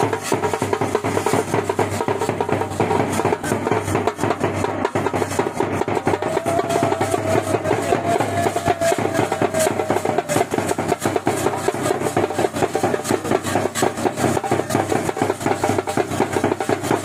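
Pahadi band drums, a large bass drum and a small snare-type drum, beaten with sticks in a fast, steady rhythm. A held high melodic note rises over the drumming from about six seconds in.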